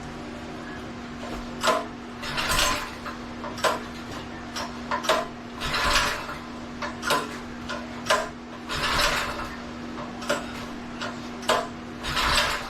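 Hand-tool work on a small engine: sharp metal clicks alternating with short ratcheting rasps, repeated about every three seconds over a steady background hum.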